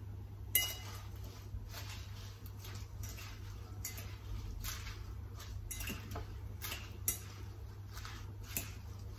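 Metal fork tossing salad leaves in a glass bowl: repeated short strokes, with a few sharper clinks of the fork against the glass, one about half a second in and another near 7 seconds.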